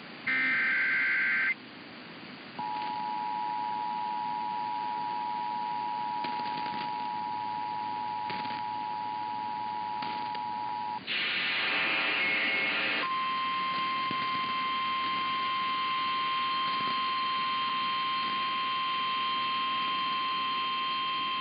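Emergency Alert System signalling: a short warbling data burst, then the two-tone EAS attention signal held for about eight seconds. Next comes a harsher buzzing tone for about two seconds, then a single steady alarm tone, the NOAA Weather Radio warning tone, for about nine seconds.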